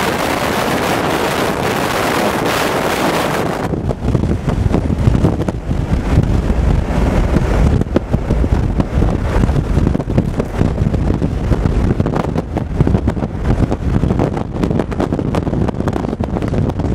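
Wind buffeting the microphone inside a moving vehicle. A loud, even hiss cuts off suddenly about four seconds in, leaving a low, gusty rumble.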